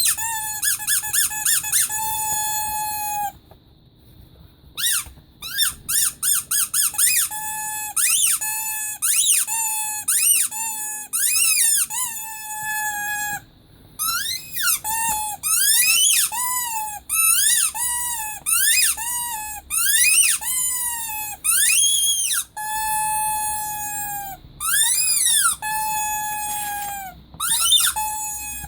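Rubber teddy-bear squeaky toy squeezed over and over, giving runs of quick short squeaks and longer held squeaks. Some squeaks bend up and down in pitch, and there are short pauses twice.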